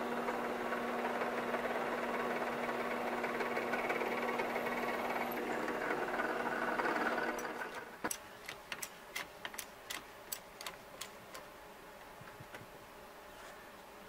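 Drill press running with a steady hum as a centre drill cuts into an aluminium block; it stops about seven and a half seconds in. Then comes a quick run of about a dozen sharp clicks over some three seconds.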